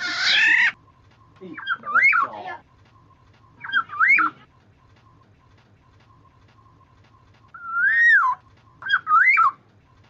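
Black-naped oriole (kepodang) calling: a harsh nasal call at the start, then four short fluty whistled phrases that swoop up and down.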